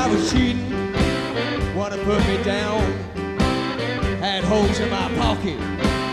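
Background music: a 1960s-style rhythm-and-blues song with a bass line, a steady beat and a lead line sliding in pitch.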